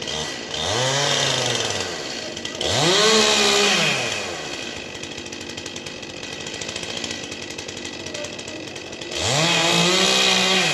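Chainsaw engine revved up and let back down three times, about half a second in, about three seconds in and about nine seconds in, running at a lower speed in between.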